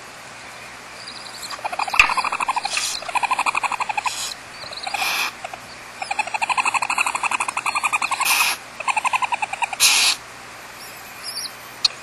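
Barn owls calling in their tree-cavity nest: rapid chattering trains of calls that rise and fall in pitch, broken by about five short harsh hisses. A few faint chirps come near the end.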